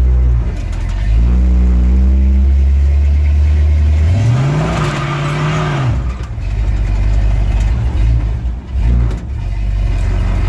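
Dodge D100 pickup's 383 big-block V8 heard from inside the cab as the truck is driven. The engine note steps up briefly about a second in, then revs harder with a louder rush for about two seconds around the middle, before dropping back to a low, steady run.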